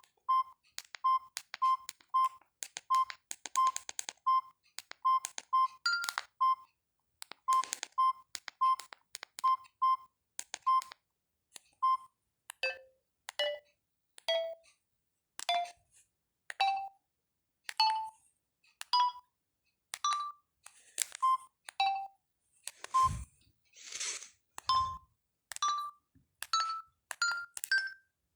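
Samsung GT-E1080F mobile phone playing one of its built-in ringtones: a melody of short beeping notes, one note at a time. It opens with a quick run of the same note, then the notes step upward in pitch. Two dull thumps come in past the middle.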